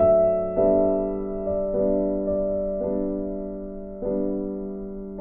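Background music: gentle piano-like keyboard chords, each struck and left to fade, a new chord about every half second to a second.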